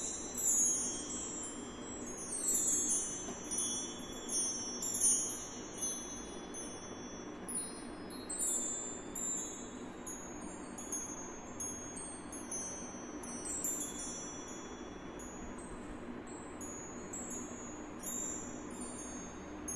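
Bar chimes, a long row of golden metal rods hanging from a wooden bar, ringing in shimmering cascades of high bright notes, busiest in the first few seconds and then thinning to sparser tinkles. A low steady hum runs underneath.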